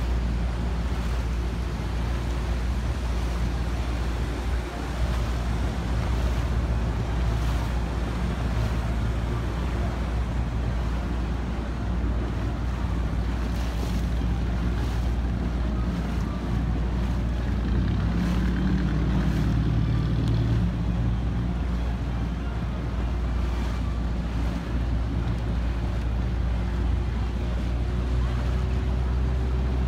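A small boat's engine running steadily while under way, with water rushing past the hull and wind on the microphone. A stronger engine note swells and fades a little past the middle.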